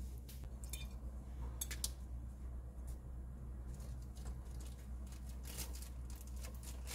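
Small clicks and crackles from pieces of frozen yogurt bark being handled on a ceramic plate, then a glass syrup bottle being tipped over it, with a steady low hum underneath.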